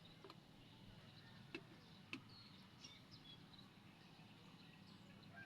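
Near silence: a faint steady low hum with a few soft clicks and faint high chirps.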